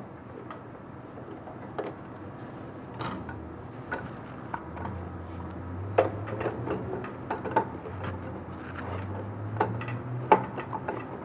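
An empty cardboard core being slid onto the metal shaft of a DTF printer's film take-up roller, with scattered light knocks and clicks of handling. A low hum comes in about four seconds in and stops near the end.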